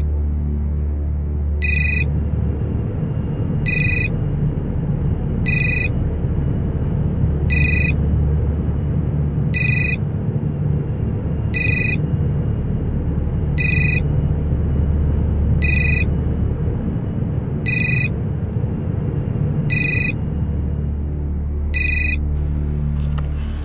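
Desk telephone's electronic ringer: a short warbling trill every two seconds, about a dozen rings, then it stops shortly before the end. Under it runs a low, tense background music drone.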